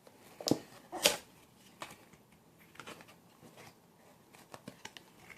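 Packaging of polishing foam pads being opened by hand: two sharp clicks or snaps about half a second and a second in, followed by lighter scattered ticks and crackles of handling.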